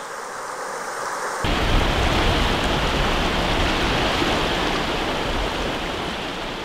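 Steady rush of river rapids, white water running over rocks. A little over a second in it switches abruptly to a louder, fuller rush from a different stretch of rapids.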